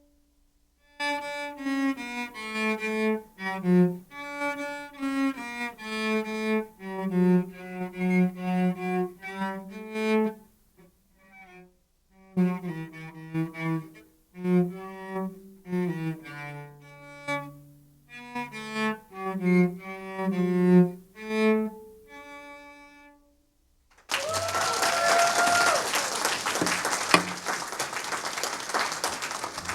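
A bowed string instrument in the cello range plays a slow melody of separate sustained notes. Near the end the music gives way to about five seconds of loud, even noise.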